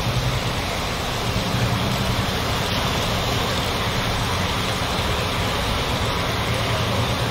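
Ford Figo car driving through shallow floodwater: a steady rush and splash of water pushed aside by the wheels, over a low engine hum.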